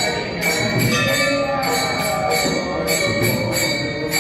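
Music with jingling bells keeping a steady beat, about three strokes a second, over sustained tones.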